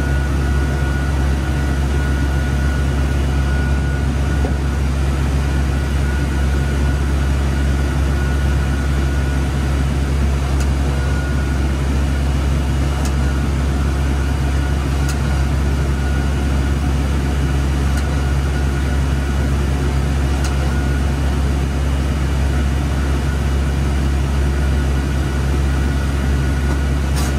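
Steady, loud low hum of machinery in an IMAX 70mm film projection booth, with a thin high whine that comes and goes and a few faint ticks.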